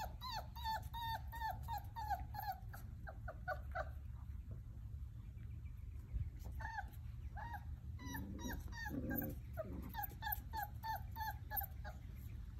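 Basset hound puppy whimpering in short, high cries that fall in pitch, about three a second, pausing about four seconds in and then starting again. A lower growl comes in about eight seconds in.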